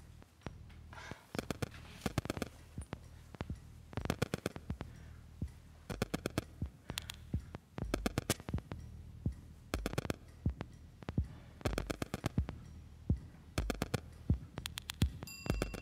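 Tense film score: a low thump about every two seconds under clusters of sharp ticking clicks, with a steady high tone coming in near the end.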